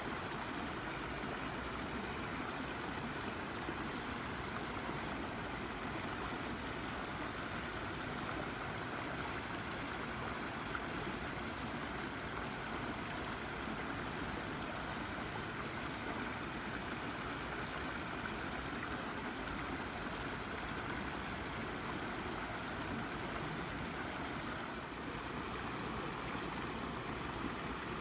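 Brook babbling steadily as water flows over and around a rock, a continuous, even rush of running water.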